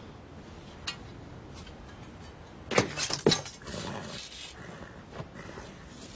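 Sword-fight sound effects: a light metallic click, then two sharp metallic clashes about half a second apart near the middle, followed by a second of scuffling as a fighter is pinned down in the sand.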